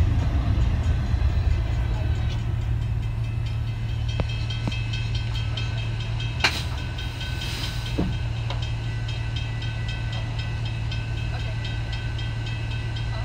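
Autorack freight cars rolling past at a steady low rumble of wheels on rail, with a few sharp clacks and easing slightly as the end of the train moves away. From about five seconds in, a high, evenly repeating ringing is heard above the rumble.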